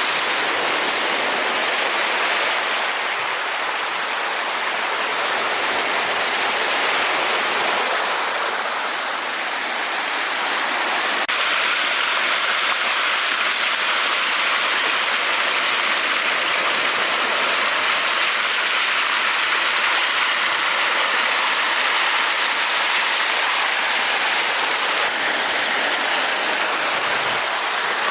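Water rushing steadily with an even hiss, with no rhythm of breaking waves.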